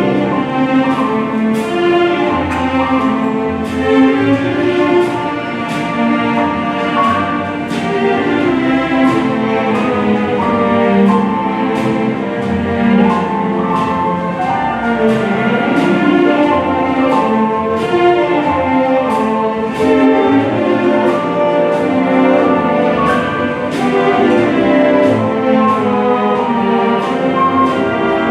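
Symphony orchestra playing, with many held and moving notes, and a light percussion beat of about two strokes a second.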